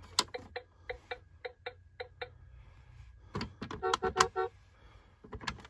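Electronic toy steering wheel's turn-signal sound, ticking about five times a second for two seconds. Then come plastic button clicks and a short pulsing electronic horn beep, about four seconds in, as the wheel's centre button is pressed.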